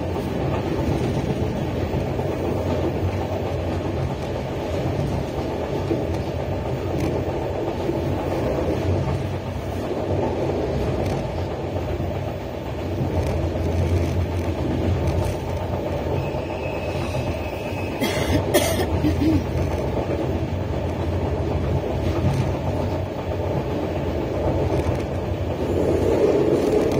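Passenger train running at speed, heard from inside the coach: a steady low rumble of wheels on rails. About two-thirds of the way through comes a brief thin high tone, then two sharp clicks.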